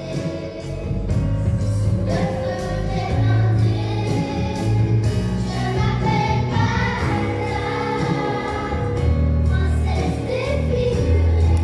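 Children's choir singing a pop-style song with live band accompaniment: a drum kit keeping a steady beat under a bass line. The voices come in about two seconds in.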